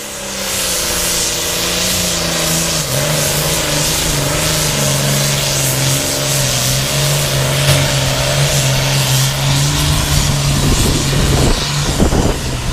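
Pulling tractor's diesel engine running flat out as it drags a weight-transfer sled, its pitch stepping down in the first few seconds as the load pulls it down, then holding steady. Wind rumbles on the microphone near the end.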